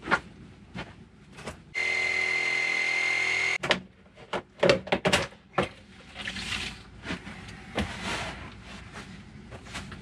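A cordless power saw runs steadily with a high whine for about two seconds, cutting through a buried drain pipe, then stops abruptly. It is followed by a string of knocks and thuds as the cut section of pipe is worked loose and handled.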